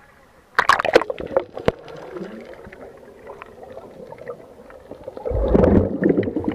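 Water splashing and gurgling close to the camera as a snorkeler swims: a sharp splash about half a second in, then steady sloshing, and a heavier, deeper slosh near the end.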